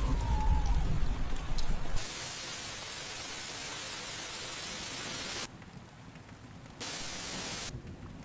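A deep rumble fades out over the first two seconds. Then a steady rain-sound hiss starts abruptly, cuts off suddenly about halfway through, and comes back briefly near the end.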